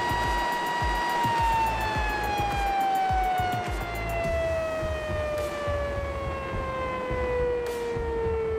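Fuji Paudal Egg Atomizer hammer mill giving a steady high whine. About a second in, the whine begins falling steadily in pitch as the hammer rotor coasts down with the motor switched off.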